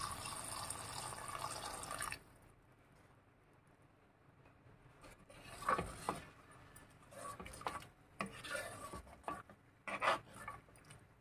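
Hot water pouring into a pan of curry masala for about two seconds. After a pause, a metal spoon stirs the thin gravy, scraping and clinking against the pan now and then.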